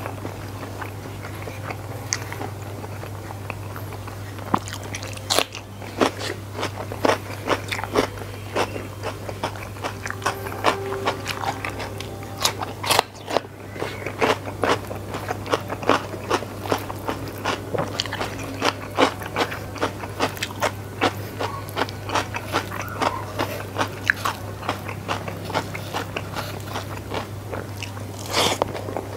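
Close-miked mukbang eating: crunchy bites of raw cucumber and wet chewing of rice with sambal petai, full of quick sharp mouth clicks and smacks, with a louder mouthful near the end. A steady low hum runs underneath.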